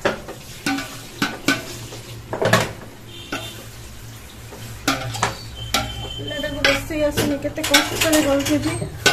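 Metal utensils clinking and scraping against a cooking pot as food is stirred, in repeated short clatters that come thicker in the second half.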